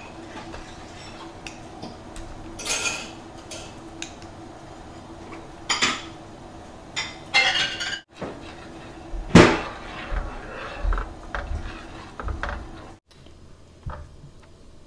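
A metal spoon clinking and scraping against a ceramic bowl and the pot as hotpot soup-base paste is spooned into boiling water, with several separate clinks over a steady low hum.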